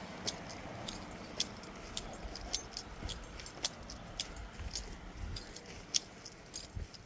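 Small metallic clicks and clinks of keys and lock parts being handled while a garage door lock is rekeyed: irregular sharp ticks, several a second.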